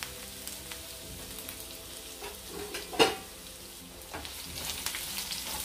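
Onion, garlic, curry leaves and dried red chillies sizzling in shallow oil in a nonstick frying pan, with scattered small crackles. A single sharp knock comes about three seconds in.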